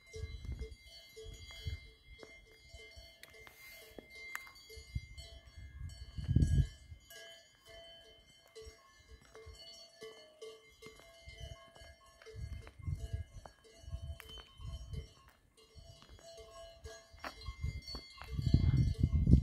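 Cowbells on grazing cattle ringing and clanking in an overlapping jangle of tones. Gusts of wind rumble on the microphone, loudest about six seconds in and again near the end.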